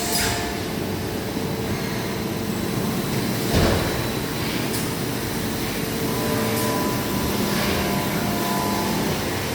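Hermle C40 U five-axis vertical machining center running: a steady mechanical hum with faint steady tones, broken by one short knock about three and a half seconds in.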